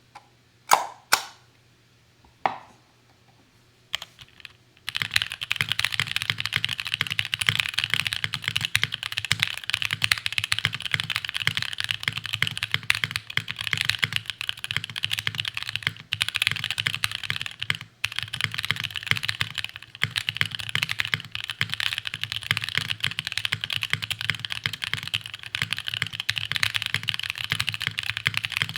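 Plateless mechanical keyboard with stock Tecsee Lake Blue switches and GMK keycaps being typed on: a few separate loud key clacks in the first few seconds, then continuous fast typing from about five seconds in, with a couple of brief pauses.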